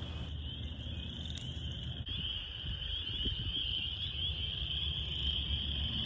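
Dense chorus of many spring peepers and chorus frogs calling at once: a steady mass of high, short rising peeps overlapping without a break.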